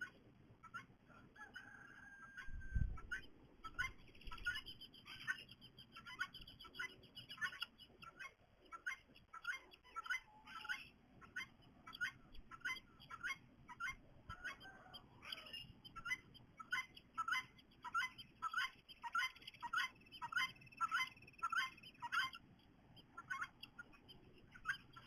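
A bird calling repeatedly with short, sharp chirps, about two a second, with a couple of brief longer whistled notes among them. A single low thump about three seconds in.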